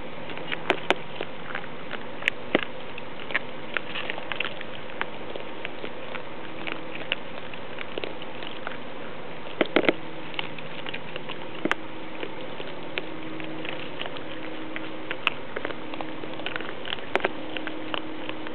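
Raccoons eating dry kibble: irregular crunching and clicking of the pellets, with a cluster of louder clicks about ten seconds in, over a steady background hiss.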